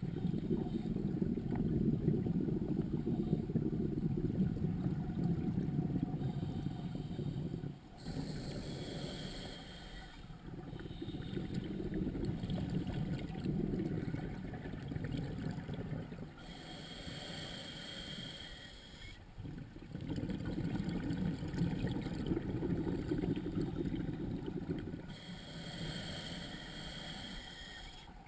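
Scuba diver breathing through a regulator, heard underwater: long bubbling exhalations alternate with shorter hissing inhalations, about three breaths in all.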